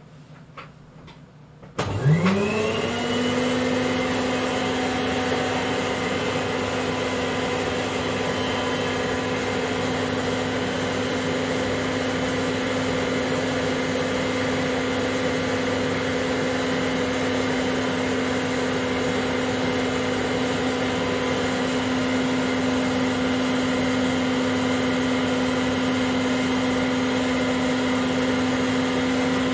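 Old vacuum cleaner switched on about two seconds in, its motor spinning up with a rising whine and then running at a steady pitch. It is blowing air out through its hose to inflate a large inflatable pool.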